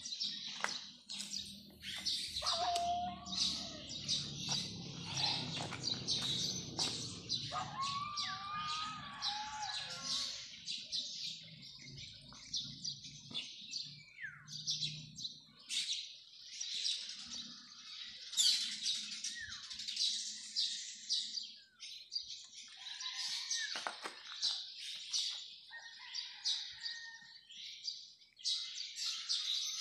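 Many small birds chirping and twittering without pause, with a few short whistled notes sliding in pitch. A faint low hum runs underneath during the first half.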